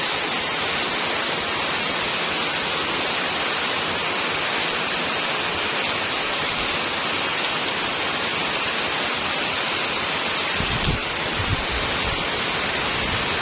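Heavy rain falling as a steady, dense hiss, with a couple of brief low thuds about eleven seconds in.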